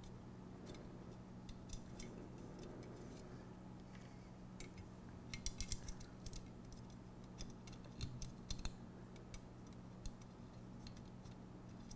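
Faint small metal clicks and ticks as M3 hex cap bolts are turned in by hand at the end of an aluminium C-channel, bunched around the middle and again about two-thirds in, over a steady low hum.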